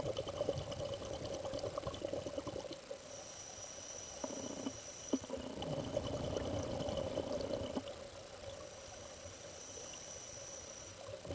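Scuba diver breathing through a regulator, heard underwater: two bursts of bubbling exhalation about five seconds apart, with quieter inhalations between them.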